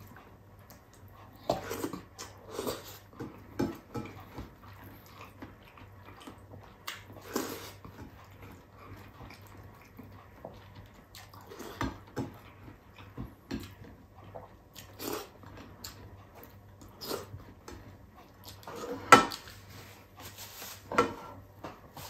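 A person eating with his fingers from a plate: scattered chewing and mouth sounds with light taps. Near the end come two louder sharp sounds about two seconds apart.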